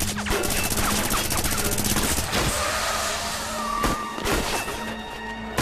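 A fast rattle of shots like automatic gunfire for about the first two seconds, then a noisy din with a few more sharp cracks.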